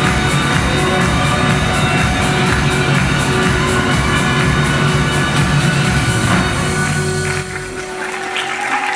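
Drum show group drumming a steady beat over a recorded folk-song backing track. The music thins out and drops away about seven and a half seconds in, as the number ends.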